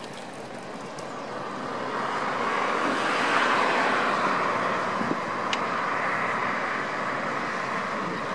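Blended engine noise from many vehicles, without a single distinct engine, swelling over a couple of seconds and then holding steady.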